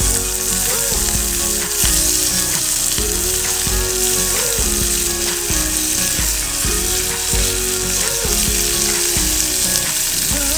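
Background pop music in an instrumental passage between sung lines: a held melodic line over a pulsing bass, with a steady high hiss under it.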